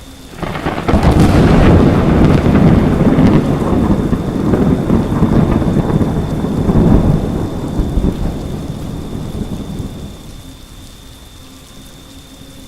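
Thunderstorm sound effect: a sudden thunderclap about half a second in, rumbling loudly for several seconds and fading out by about ten seconds, over steady rain.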